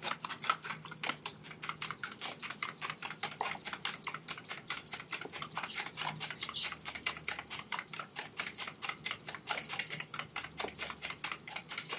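Wire hand whisk beating eggs in a plastic bowl: a fast, steady clatter of several strokes a second as the eggs are whipped to a froth.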